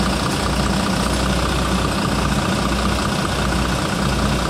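A heavy vehicle's engine idling steadily, with a low throb that swells and fades a little more than once a second.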